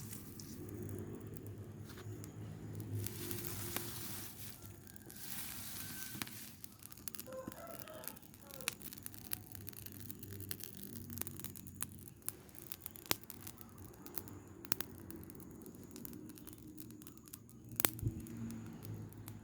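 Burning pile of rubbish crackling, with scattered sharp pops over a low rumble and one louder pop near the end. A rooster crows faintly about halfway through.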